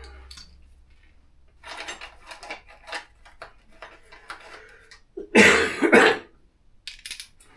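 Light clinking and clicking of metal hand tools being handled, then a loud two-part cough about five seconds in.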